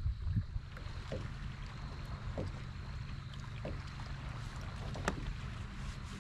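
Fishing kayak under way on the water: a steady low hum with faint, regularly spaced ticks.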